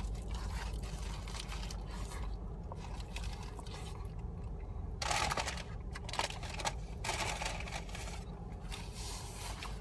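A person chewing a mouthful of grilled chicken sandwich, with rustling and crinkling of the sandwich's foil-lined paper wrapper about five seconds in and again near the end, over a steady low hum.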